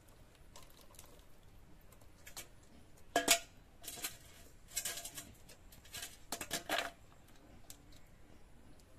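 Kitchen food-preparation sounds: a handful of short scraping and clattering noises, a few with a slight metallic ring, bunched between about three and seven seconds in.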